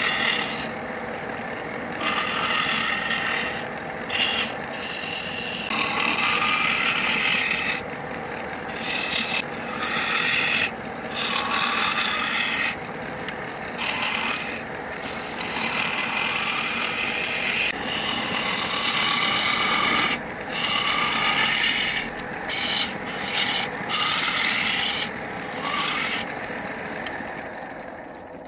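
Wood lathe running while a turning tool hollows the end grain inside a goblet's cup: a rasping cut in repeated strokes of a second or a few, with short breaks, over the steady hum of the lathe. Near the end the cutting stops and the lathe sound fades away.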